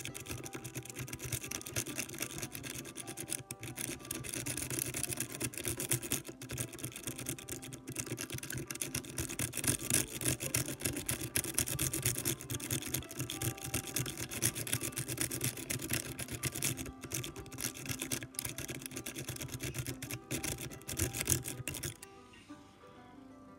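Lock pick scrubbing rapidly back and forth across the pins in the keyway of a six-pin brass cylinder lock held under tension, a continuous fast metallic scratching that stops near the end. Faint background music underneath.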